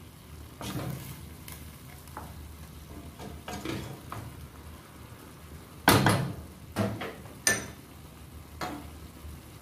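Wooden spoon stirring chicken and bell peppers sautéing in a stainless steel pot, the food sizzling, with scraping strokes and a few loud knocks against the pot about six to seven and a half seconds in, the last with a short metallic ring.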